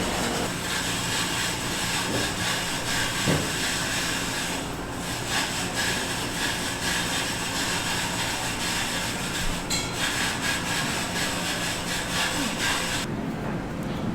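Electric shaved-ice machine grinding a block of ice into flakes, a steady rasping grind that cuts off sharply near the end.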